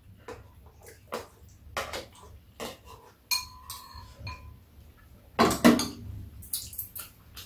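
Metal spoons and chopsticks clicking against ceramic and plastic soup bowls during a meal, one clink leaving a short ring about three seconds in and a louder clatter a little past halfway.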